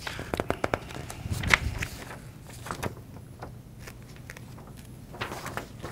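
Sheets of paper rustling and crinkling as they are handled and leafed through, a flurry of crackles in the first two seconds and another shortly before the end, over a faint steady hum.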